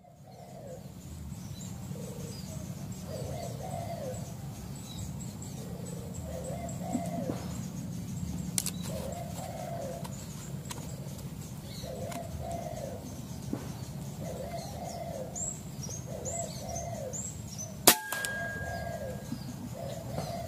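Spotted dove cooing over and over, with small birds chirping high above it. About 18 seconds in comes a single sharp rifle shot, the loudest sound, followed by a short ringing tone.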